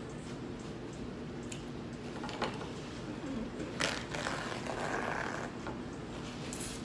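Close-up chewing and crunching of food, with a few small clicks and a louder crunchy stretch about four to five and a half seconds in, over a steady low hum.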